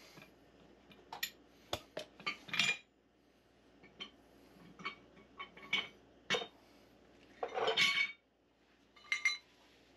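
Irregular sharp metallic clinks and clanks as threaded black steel pipe and fittings are handled and knocked together, with a longer rattle near the end.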